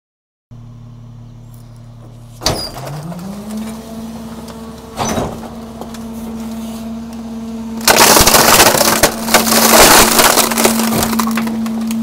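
Garbage truck compactor cycling: a hydraulic whine rises in pitch and then holds steady. Sharp cracks come about two and a half and five seconds in, then loud crunching and breaking from about eight seconds in as junk that includes a television is crushed.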